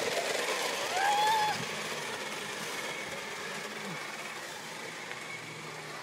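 Small electric motor of a remote-control toy running steadily, with one short rising-and-falling voice call about a second in.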